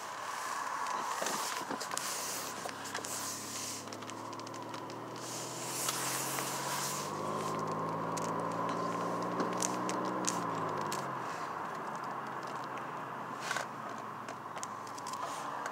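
Car engine heard from inside the cabin, its note rising slowly as the car gains speed, then falling away about ten seconds in as the car slows for traffic. Scattered clicks and crackles, and a steady high whine, run under it.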